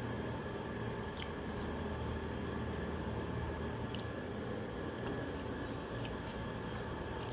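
A person eating rice mixed with fish bhuna: soft wet squishing, chewing and small mouth clicks over a steady background hum.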